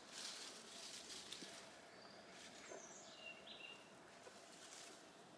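Near silence: faint outdoor ambience with soft rustling near the start and a few short, high bird chirps around the middle.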